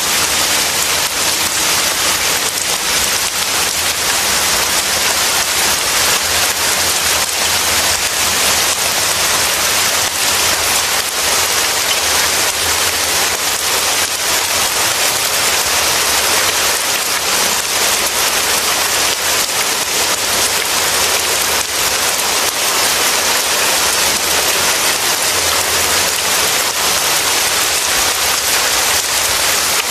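Steady heavy rain, an even hiss that neither builds nor lets up.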